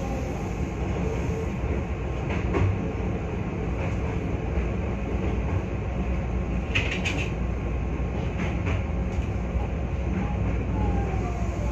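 Hankyu 1300 series electric train standing at a station platform, heard from inside the front car: a steady low rumble and hum. A short cluster of sharp clicks comes about seven seconds in.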